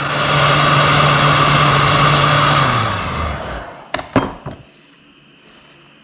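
Electric heat gun blowing steadily, then switched off about three seconds in, its motor humming down to a stop, followed by a couple of short clicks.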